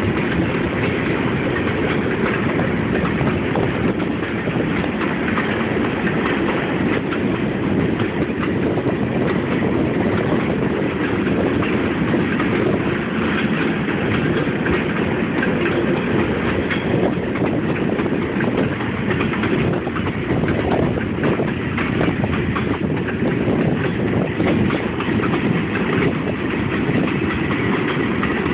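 Freight cars of a long mixed freight train rolling past: a steady rumble and clatter of steel wheels on rail, with many small knocks.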